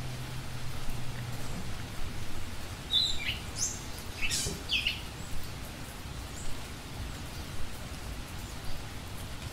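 A few short bird chirps about three to five seconds in, over a steady outdoor hiss; a low hum stops about a second and a half in.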